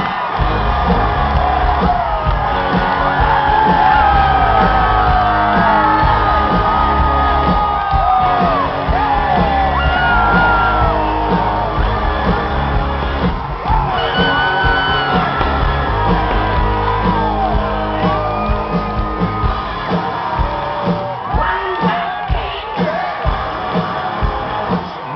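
Loud live rock band performing, heard from within the concert crowd, with a singer's voice and shouts from the audience over a heavy, steady bass and drums.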